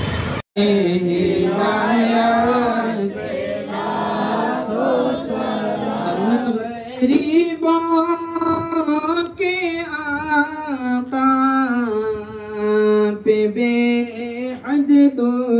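A voice singing a slow, melodic chant, cutting in abruptly after a momentary dropout about half a second in.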